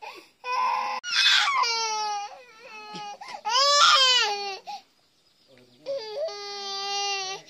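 Baby crying hard: three loud wails with short sobs between the first two, then a brief pause before a last long, steady wail.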